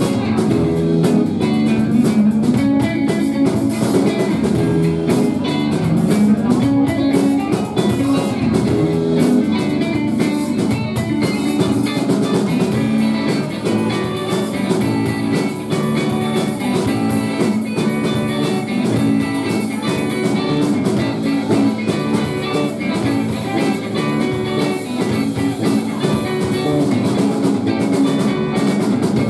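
Live rock band playing an instrumental passage: electric guitars over a steady drum-kit beat.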